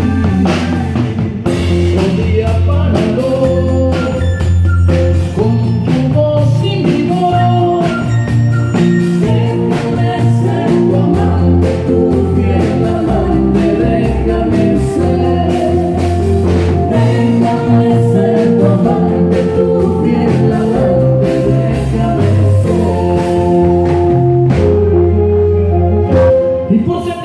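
A live band playing a song at a sound check: drum kit, bass and melodic instruments, with a singing voice.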